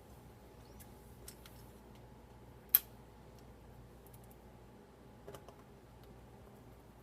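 Small clicks and taps from refitting a Dell Latitude E5420 laptop's bottom cover and screws: a few faint clicks and one sharp click a little under three seconds in.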